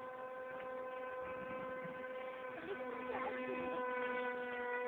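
Beta 1400 RC motor glider's motor and propeller running under power in flight, heard from the ground as a steady, even-pitched drone that grows slightly louder as the plane passes.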